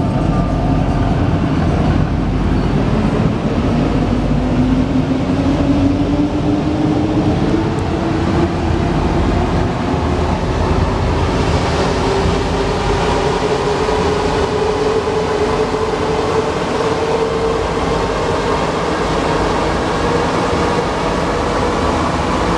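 Alstom NS-93 rubber-tyred metro train running through a tunnel, heard from inside the passenger car: a steady loud rumble with a motor whine that climbs slowly in pitch as the train gathers speed.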